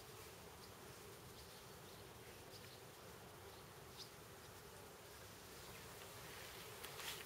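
Faint, steady buzzing of a flying insect hovering, over a quiet background hiss, with a few short crackles near the end.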